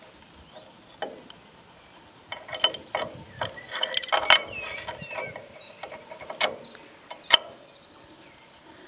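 Irregular metallic clicks, taps and short scrapes from a hand handling the steel chassis of a mobile sawbench: one about a second in, a quick run of them in the middle, then a couple of sharper single clicks, the loudest near the end.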